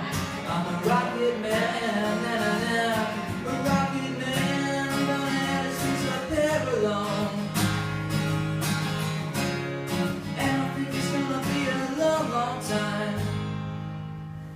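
Acoustic guitar strummed through the closing chords of a song, fading out near the end.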